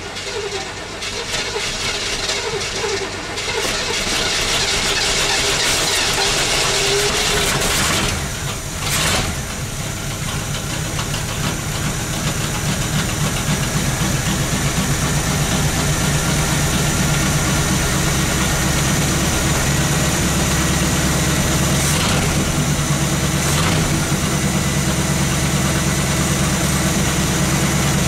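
Chevy 350 small-block V8 starting from cold after sitting about eight months. It catches unevenly in the first few seconds, then settles into a steady idle from about ten seconds in.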